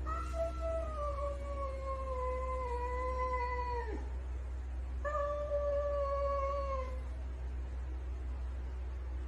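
Domestic cat giving two long, drawn-out meows: the first lasts about four seconds, slowly falling in pitch and dropping away at its end; the second, about two seconds long, follows a second later.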